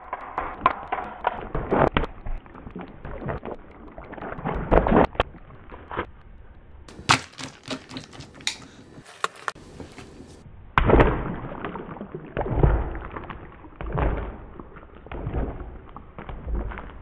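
A water balloon bouncing and rolling on a hardwood floor: irregular dull thuds. A run of sharper clicks comes in the middle.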